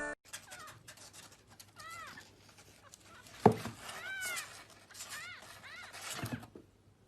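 A cat meowing: several short, high-pitched meows that rise and fall in pitch, with a sharp knock about halfway through, the loudest sound, and a dull thump near the end.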